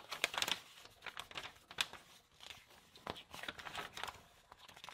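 Paper pages of a thermostat instruction booklet being flipped by hand: a run of irregular rustles and light snaps as the sheets turn.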